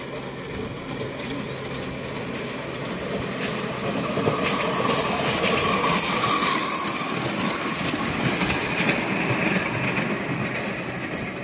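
Ride-on miniature railway train, a small steam-style locomotive hauling a riding car on ground-level sectional track, rolling past with its wheels rumbling and clicking over the rail joints. It grows louder to about six seconds in as it passes close.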